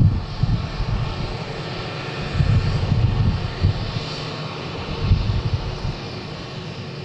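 Jet engines of a Korean Air Airbus A380, Engine Alliance GP7200 turbofans, running as the aircraft rolls along the runway: a heavy, uneven low rumble over a steady jet hiss, easing slightly near the end.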